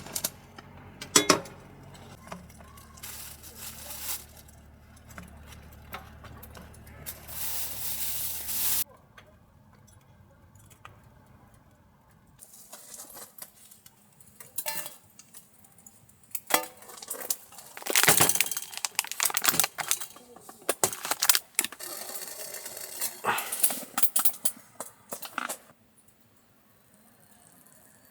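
Intermittent metallic clinks and clattering of objects being handled, with a steady low hum through the first nine seconds that cuts off suddenly.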